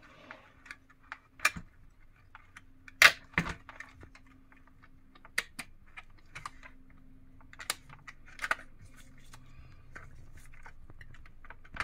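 Scattered light plastic clicks and taps from the parts of a Lexus LX470 instrument cluster being handled during reassembly, with two sharper knocks about three seconds in.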